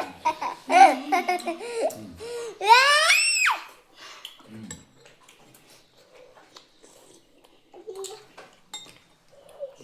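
People laughing, with a child's high-pitched squealing laugh about three seconds in. After that, only faint small clicks and taps, like spoons and eating.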